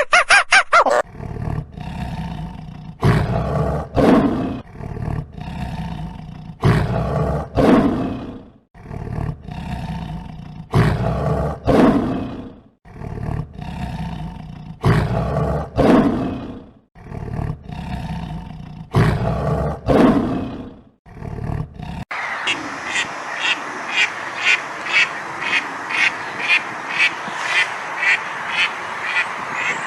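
A lion roaring: deep roars repeating in pairs about every four seconds. About 22 seconds in it cuts abruptly to ducks quacking rapidly, about two quacks a second.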